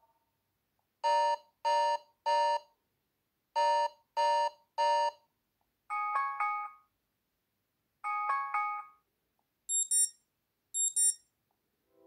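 Wileyfox Swift 2 Plus phone speaker previewing a run of its built-in alarm tones as each one is tapped. First come two sets of three identical electronic beeps, then a short chime of several notes played twice, and near the end two quick pairs of very high-pitched beeps.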